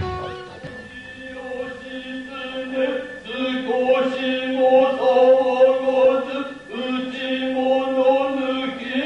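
Noh chant (utai): male voices chanting in long, low, held tones that pause every second or two.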